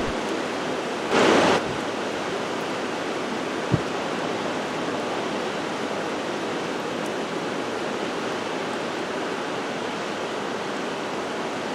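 Steady rushing noise of tropical-storm weather outdoors, with a brief louder rush about a second in and a single sharp click a couple of seconds later.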